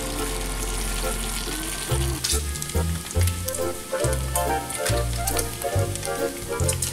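Bacon sizzling and crackling in a skillet. Background music with a bass line comes in about two seconds in.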